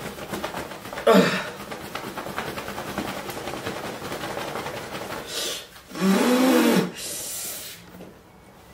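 A man breathing hard and groaning from the burn of an extremely hot scorpion-pepper sauce. There is a sharp vocal cry about a second in, a hissing breath near five seconds, and a drawn-out groan that rises and falls in pitch about six seconds in.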